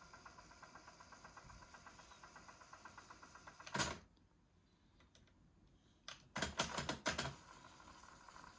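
A TEAC CD-cassette deck's transport mechanism running with a fast, even ticking. It stops with a loud clunk about four seconds in and goes nearly quiet. A cluster of mechanical clunks follows about two seconds later, then the ticking running starts again, as the deck is tested after new rubber belts were fitted.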